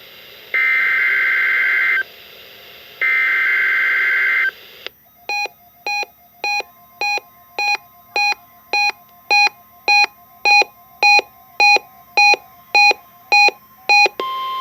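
NOAA Weather Radio SAME header: two screechy digital data bursts of about a second and a half each, then a weather-radio receiver's alert beeping about twice a second and growing louder. Near the end a steady warning tone comes through on its own, marking the start of the Required Weekly Test.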